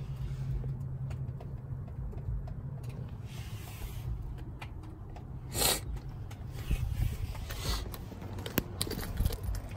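Steady low rumble of wind and handling noise on a handheld phone microphone outdoors. A short hiss comes about halfway, and a few light clicks or taps come near the end.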